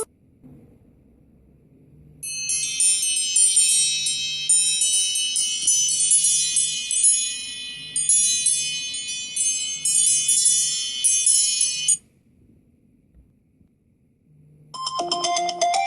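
iPhone ringtone made of a dense run of quick, high chiming notes, starting about two seconds in and cutting off sharply about twelve seconds in. Near the end, after a short pause, the next ringtone begins with lower notes.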